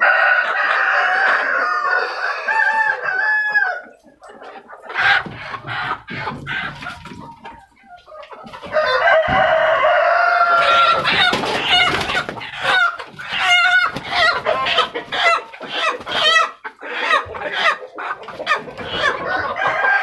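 KUB village chickens clucking and calling over one another, several birds at once. Loud at the start, quieter for a few seconds about four to eight seconds in, then busy again.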